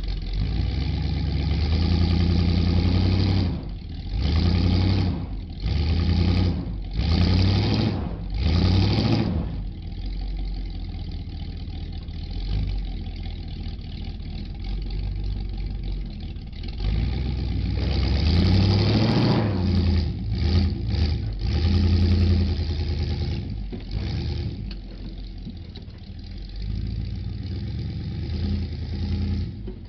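Pickup truck engine revving in short repeated bursts while towing a dead truck backwards on a tow strap, with a steadier stretch, then a longer rising rev and more surges past the middle before it settles back.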